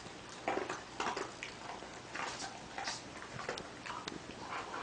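Faint, irregular clicks and ticks, a few each second, over quiet room hiss.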